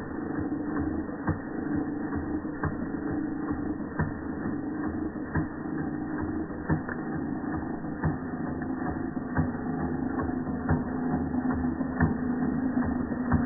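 Georges Carette model 2317 toy vertical steam engine running under steam: a steady mechanical hum with a sharp click or knock from its moving parts about every second.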